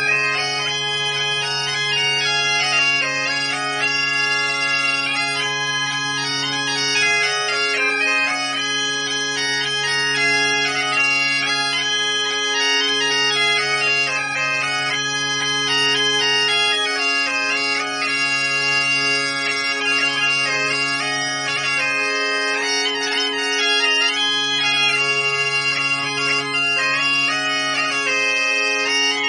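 Two Galician gaitas (bagpipes) playing a xota in waltz time together. A reedy chanter melody runs over a steady bass drone.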